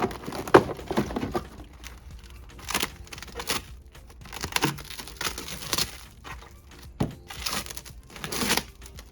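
Packaging being handled: paper and plastic wrapping rustling and crinkling in a string of irregular swishes, with a few light knocks.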